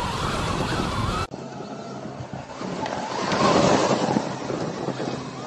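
Wind rushing over the microphone and tyres rolling over a dry dirt trail while riding a Sur-Ron electric dirt bike. The sound changes abruptly about a second in, then swells to its loudest around three to four seconds in.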